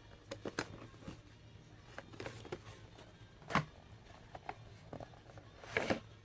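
A cardboard box and the packaging inside it being handled: scattered taps, clicks and rustles, with louder rustles about three and a half seconds in and again near the end, over a low steady hum.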